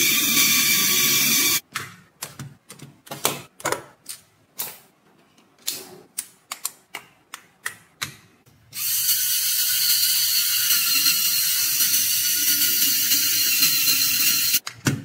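Lego Technic electric motor and gear train whirring steadily as the small car drives up a steep slope. From about 1.6 s comes a run of sharp plastic clicks and snaps as Lego parts and wheels are fitted to the car. At about 9 s the motor whirring starts again, ending in a few clicks near the end.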